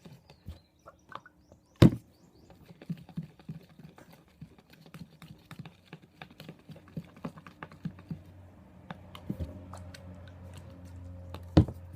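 A spoon stirring a sticky mixture of glue and slime activator in a bowl, making many small irregular clicks and tacky sounds, with two sharp knocks, about two seconds in and near the end. The mixture is still sticky and slow to activate.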